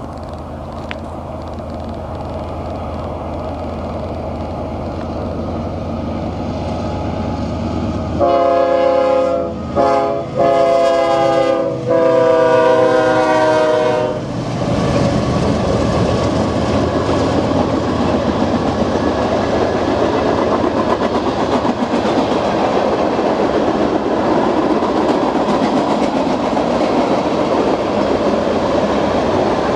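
Freight train led by CSX diesel locomotives drawing closer, its engine rumble rising. About eight seconds in, the locomotive's air horn sounds in several blasts, the last one held about two seconds. The locomotives then pass and the freight cars roll by with steady wheel clatter.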